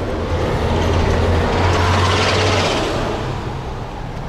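Road traffic: a motor vehicle passes close by, its low engine hum and tyre noise swelling to a peak about two seconds in, then fading.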